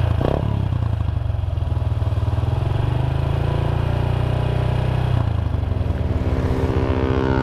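Honda Astrea Grand's single-cylinder four-stroke engine running at a high idle, held steady, through a gutted Honda Revo Absolute muffler, giving a bassy, mellow exhaust note. The idle is set high on purpose because the engine is hard to start cold.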